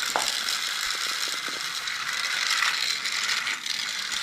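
Small electric motor and plastic gears of a battery-powered toy whirring steadily with a rough, grinding edge.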